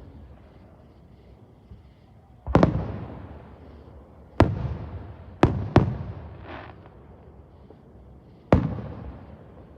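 Fireworks exploding: five sharp bangs spread over several seconds, two of them in quick succession, each trailing off in a long, rolling echo.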